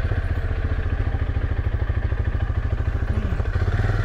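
Quad bike (ATV) engine running steadily at low speed, a fast even pulsing throb.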